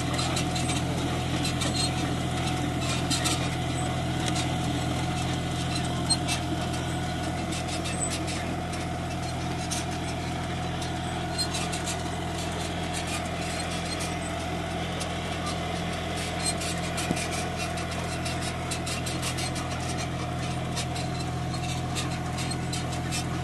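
Three-cylinder diesel engine of a 40 hp John Deere tractor running steadily while pulling a tractor-mounted potato planter, with scattered light clicks and rattles.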